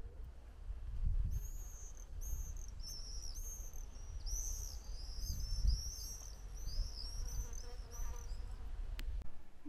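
A small bird chirping a long run of repeated high notes, about three or four a second, over a low rumble on the microphone.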